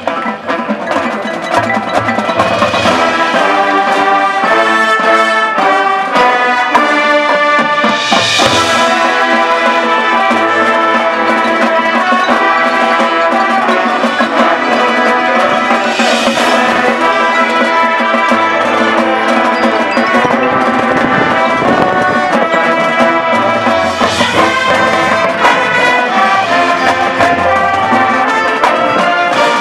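High school marching band playing: brass sections sounding loud sustained chords with percussion, and cymbal crashes about every eight seconds.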